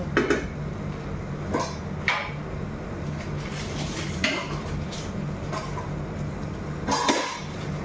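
A spoon clinking and knocking against a stainless-steel stockpot while a stew is stirred: a handful of separate knocks, the loudest near the end, over a steady low hum.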